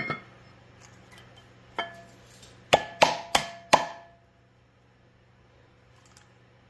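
Steel flywheel knocking and clinking against the crankshaft flange as it is seated and aligned by hand: one clink at the start, another about two seconds in, then four quick ringing knocks around three seconds in.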